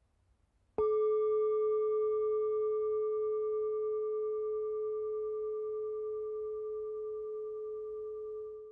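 A singing bowl struck once, about a second in, then ringing on: one strong low tone with fainter higher overtones that fade away one by one. The ring dies out near the end.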